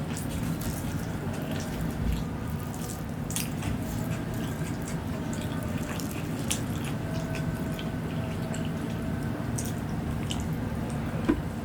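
Close-up eating sounds of fried tempeh with sambal being chewed: wet mouth clicks and smacks coming irregularly, over a steady low background hum.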